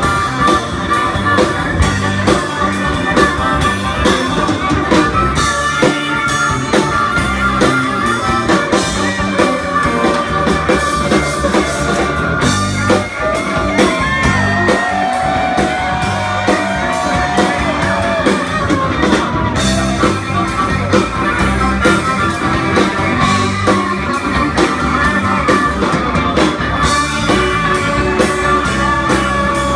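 Live blues-rock band jam: electric guitar playing over a drum kit, with a long held note bent in pitch about halfway through.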